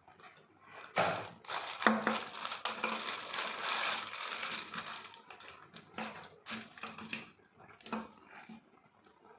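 Packaging being handled and opened: dense crinkling and rustling, loudest in the first half, followed by a few separate clicks and knocks.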